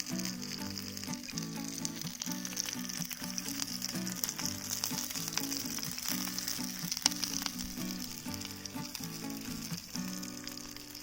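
Food sizzling and frying in a hot pan: a steady hiss with small crackling pops. Background music with a changing melody plays along.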